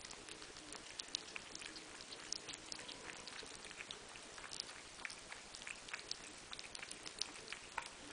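Cats eating wet cat food from a plate: faint, irregular wet smacking and licking clicks, several a second, over a steady hiss.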